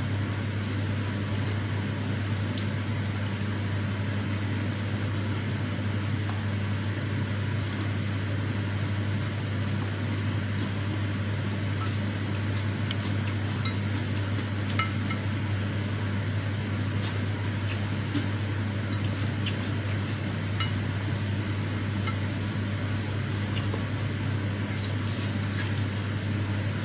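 Wooden spoon and fork clicking and tapping against a glass plate of soupy food, with wet, squishy eating sounds, many small clicks throughout, over a steady low hum and hiss that is the loudest thing.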